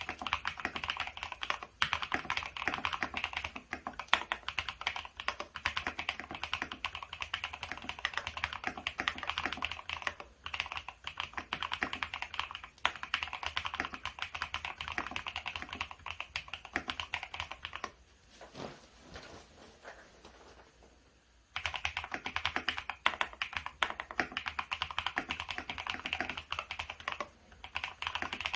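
Fast typing on a FEKER IK75 gasket-mount mechanical keyboard with Akko CS Silver linear switches and PBT OSA-profile keycaps: a dense run of key clacks. Past the middle the typing stops for about three seconds, with only a few soft knocks, then resumes.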